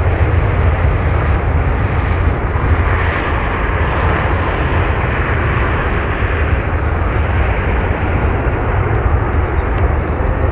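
Steady jet aircraft noise at an airfield: a constant deep rumble under an even hiss.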